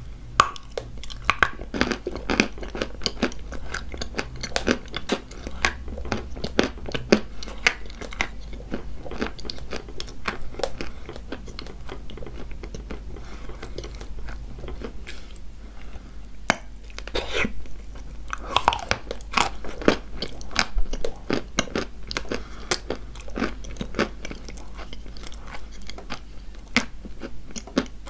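Close-up crunching and chewing of dry chalk coated in a kaolin clay paste, a dense run of sharp crackling bites and chews.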